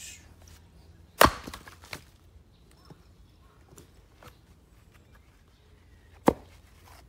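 A single axe strike splitting a black locust round on a chopping block about a second in, followed by a few smaller clacks as the split pieces fall away. Near the end, one more sharp wooden knock as the next round is set down on the block.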